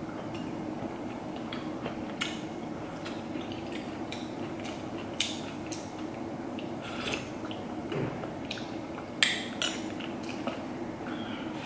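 A spoon scraping and knocking on a soup bowl, with soft sips of tom yum soup taken from the spoon, in short scattered strokes. The loudest moments are two sharp clinks of the spoon about half a second apart, a little after nine seconds in.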